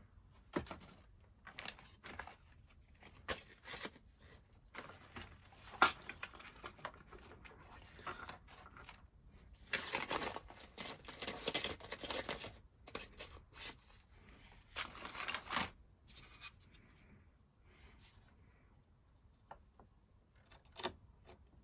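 Craft knife scraping and cutting into the wooden planking of a model ship's hull to open a gun port, with scattered clicks and knocks of small tools being handled. Two longer stretches of scraping come about halfway through.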